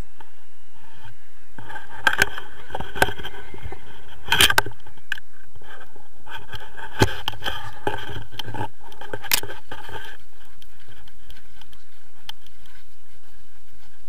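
Rushing air and rattling gear on a tandem paraglider in flight, with sharp clicks and clinks of harness metal and lines from about two to ten seconds in.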